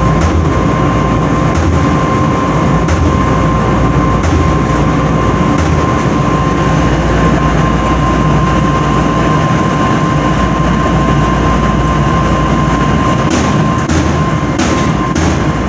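Clothes dryer running loudly: a steady rumble with a low thump about every second and a half and a steady whining tone over it. A few sharp clicks come near the end.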